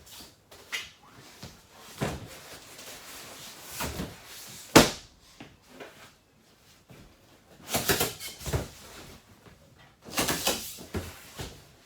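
Knocks and handling noises as a dinette table is set down as a bed base and seat cushions are laid over it. One sharp knock about five seconds in is the loudest, with two clusters of shuffling knocks later.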